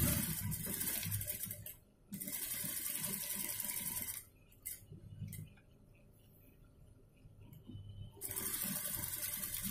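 Industrial lockstitch sewing machine running in three bursts of stitching. The first two follow each other with only a brief break, then there is a pause of about four seconds before the machine runs again near the end.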